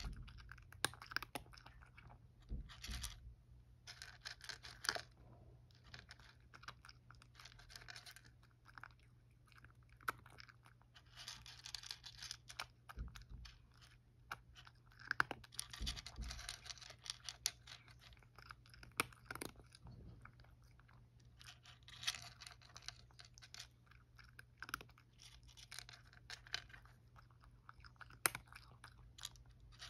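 A cat eating dry kibble, chewing and crunching in bursts of quick crunches with short pauses between mouthfuls.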